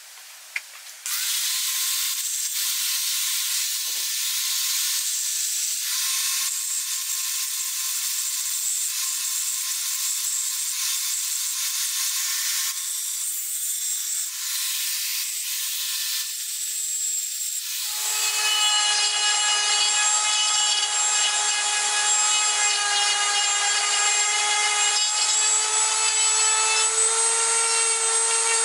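Angle grinder with a thin cut-off disc cutting a steel tool blank: a steady whine over a hiss of grinding, starting suddenly about a second in. About two-thirds of the way through, it gives way to a handheld rotary tool with a small sanding drum grinding the steel blade, a steady whine with several tones.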